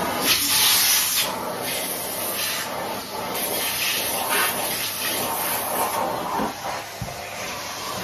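Numatic Henry cylinder vacuum cleaner running, its crevice tool sucking along the edges of carpeted stair treads. The hissing rush of air swells and fades as the nozzle is pushed along and pressed into the carpet.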